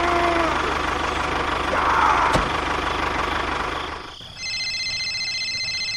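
Mini DIY model tractor driving through wet mud, with a steady engine-like running noise over a low hum. About four seconds in it drops to a quieter steady sound carrying thin high whining tones.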